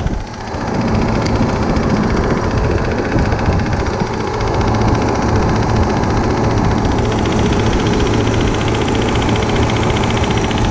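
Cold-storage refrigeration condensing unit running, a steady mechanical hum from the compressor. The unit is pumping but not cooling, which the technician puts down to low refrigerant (freon).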